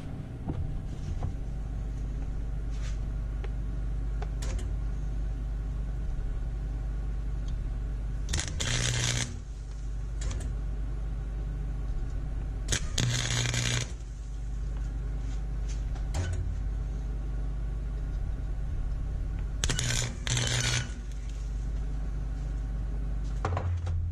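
Harbor Freight wire-feed welder striking about five short arcs, each about a second long, over a steady low hum: weld being built up into a slag pile on the end of a broken exhaust manifold stud.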